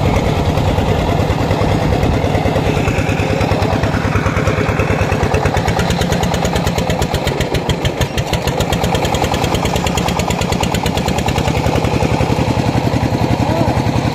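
Single-cylinder diesel engine of a công nông farm cart running with a steady, rapid beat of firing strokes while it pulls a load of logs slowly over dirt.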